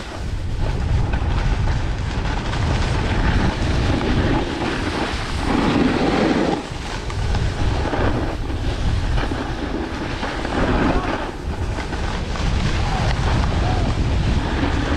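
Wind rushing and buffeting over an action camera's microphone during a downhill ski run, with the hiss and scrape of skis on hard-packed groomed snow.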